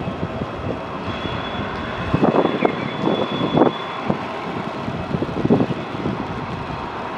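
Distant twin-engine jet airliner on its takeoff roll in rain: a steady engine rumble mixed with rain noise and a thin high whine. Clusters of louder irregular knocks come about two to four seconds in and again around five and a half seconds.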